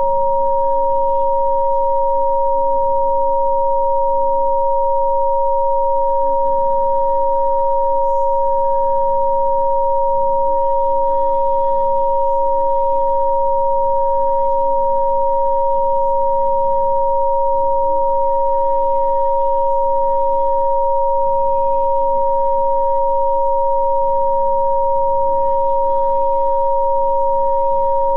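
Two steady electronic sine tones, a higher one and a lower one, held unchanging throughout: a Rife frequency-therapy tone. Faint soft music with slowly changing chords sits underneath.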